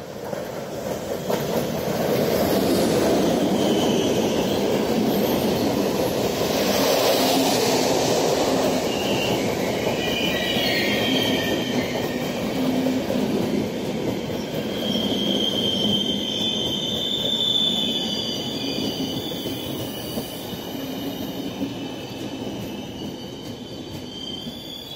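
ZSSK class 350 electric locomotive and its passenger coaches rolling past close by with a steady rumble of wheels on rail, rising over the first couple of seconds. High squealing from the wheels joins about nine seconds in and is strongest about two-thirds of the way through.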